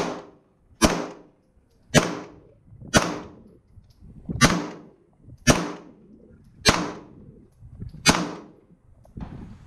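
Arsenal Firearms Strike One Speed pistol fired eight times in slow, steady succession, about one shot a second, each shot followed by a short echo.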